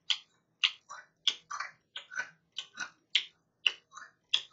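Close-miked chewing of crispy fried food, a steady run of wet crunches about three a second.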